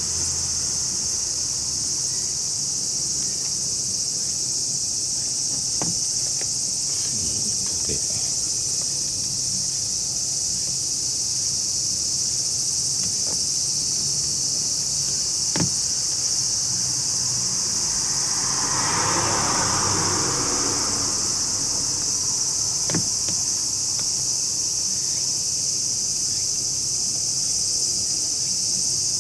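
Steady high-pitched chorus of insects droning throughout, with a few sharp clicks and a brief swell of noise about two-thirds of the way through.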